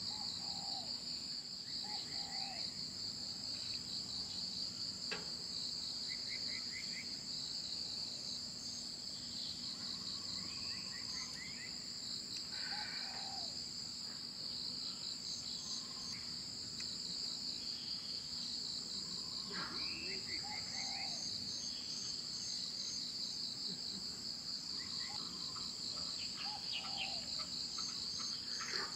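Insects trilling in a steady, high, rapidly pulsing chorus, with a second, higher steady trill above it. A few short chirping calls are scattered through.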